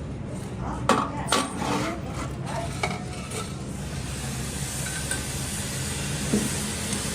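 A few metal clinks and knocks, then, from about three seconds in, the steady crackling hiss of an electric welding arc laying a bead on steel, over a steady low machine hum.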